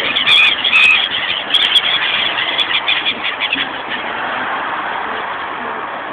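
Birds (seagulls and smaller birds) squabbling over food, with many quick, short high cries for the first three or four seconds, over steady background noise.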